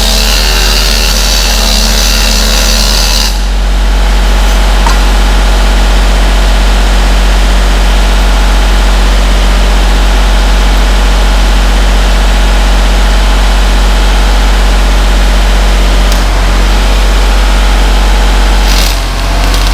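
A steady, loud machine drone with a constant low hum. A bright hiss over it cuts off abruptly about three seconds in, and a short rush of noise comes near the end.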